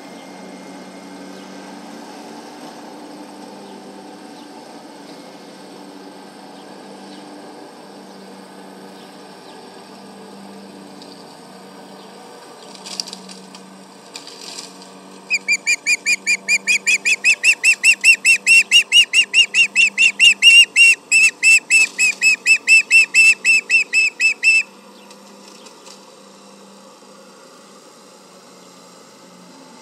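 Osprey alarm calling: a loud, rapid, even series of short, sharp whistled notes, about four a second, that starts about halfway through, runs for roughly nine seconds and stops abruptly. A steady low hum runs underneath.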